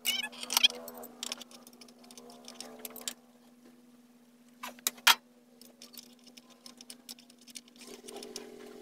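Hand tools working on a bare diesel cylinder head: scattered metal clicks and clinks, with two sharp knocks about five seconds in, over a steady low hum.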